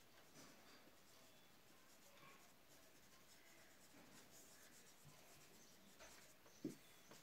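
Faint scratching of someone writing, heard over near-silent room tone, with one brief soft sound near the end.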